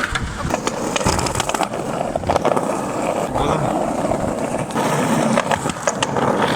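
Skateboard wheels rolling over rough pavement: a continuous gritty rumble broken by frequent small clicks and knocks.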